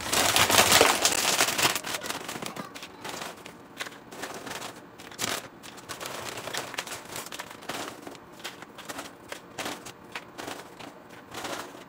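Crinkly plastic snack bag of veggie straws rustling and crackling as it is opened and the straws are taken out. The crinkling is loudest in the first two seconds, then goes on as lighter, irregular crackles.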